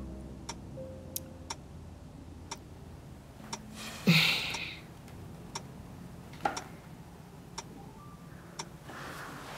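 Faint, sharp ticks or clicks, irregular at first and then about one a second, with a brief louder rustle about four seconds in.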